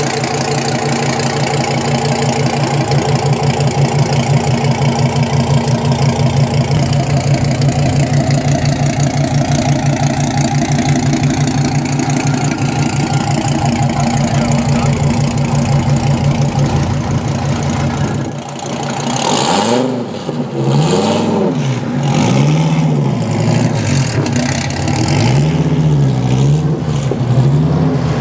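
Dodge Viper SRT10 ACR's V10 engine through a custom exhaust, running with a steady low pulsing note as the car creeps along. From about two-thirds of the way in, it revs up and down several times in quick succession as the car pulls away.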